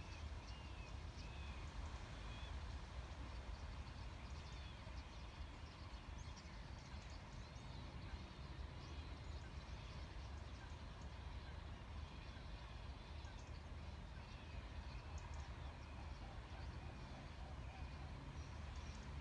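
Faint, scattered short calls and chirps of a large flock of starlings massing in a murmuration, many overlapping throughout, over a steady low rumble.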